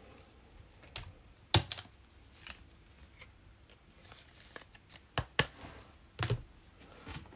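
Scattered sharp taps and clicks of trading cards and packs being handled and set down on a table, about seven separate strokes with quiet between them.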